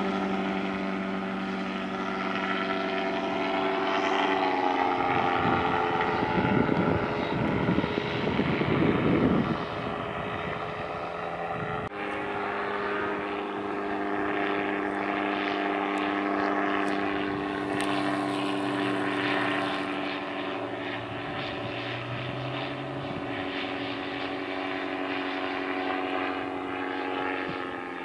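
Engine and propeller of a Kolb Firestar ultralight powered by a Yamaha Phazer snowmobile engine, running steadily in flight overhead. The engine note drops a few seconds in, and a louder rushing stretch follows before it settles back to a steady drone.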